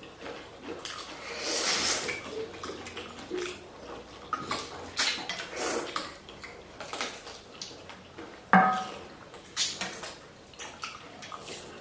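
Eating at a bowl of chicken thukpa noodle soup: a spoon and fork clinking against the bowl, with wet slurping of noodles and broth. About eight and a half seconds in comes one sharp, ringing clink against the bowl.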